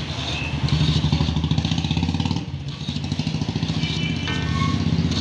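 A motorcycle engine running close by, with a steady low rumble of rapid firing pulses that dips in level a little past halfway. A few short high-pitched tones come near the end.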